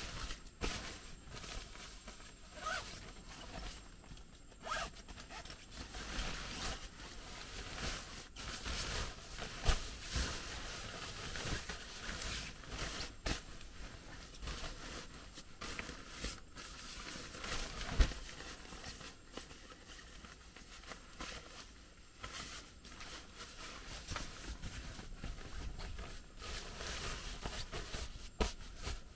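Rustling and handling noise with many scattered clicks and light knocks, two of them standing out as sharper knocks about ten and eighteen seconds in.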